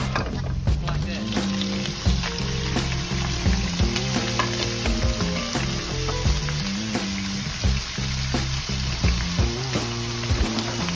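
Minced garlic and then ground beef sizzling in hot oil in a nonstick wok: a steady frying hiss broken by scattered small clicks and knocks.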